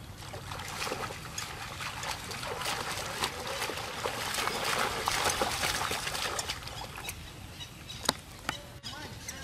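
Water splashing and churning as monkeys swim and wade through a muddy pond. The splashing builds to its busiest about five seconds in and eases off, with one sharp splash or click about eight seconds in.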